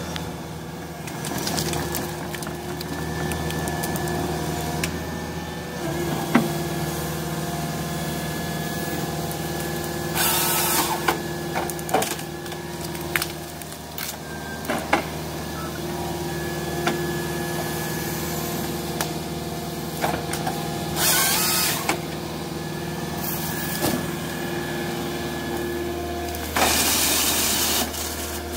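Tracked Volvo excavator running steadily with a droning hydraulic whine as its Nisula harvester head grips and fells trees. The head's chain saw cuts through trunks in short loud bursts three times: about a third of the way in, about two-thirds in, and for a couple of seconds near the end.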